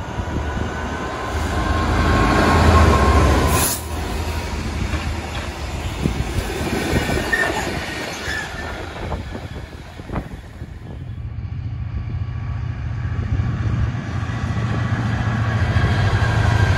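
A Class 66 diesel locomotive with its two-stroke V12 engine passes close at speed, its wheels clattering over the rail joints with a thin high whine, and it is loudest a few seconds in. After a cut, a second Class 66 hauling a snow and ice treatment train approaches, its low, steady engine note growing louder toward the end.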